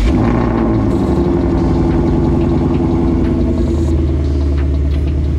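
Whipple-supercharged Ford Mustang V8 fires up with a sudden loud start, its pitch easing down over the first second or so into a steady idle.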